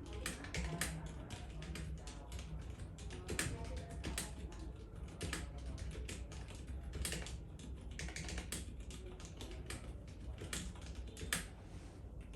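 Typing on a Novelkeys NK65 Entry mechanical keyboard with lubed Zealio V2 65 g tactile switches: a steady run of irregular key clacks, several a second, with one louder stroke near the end.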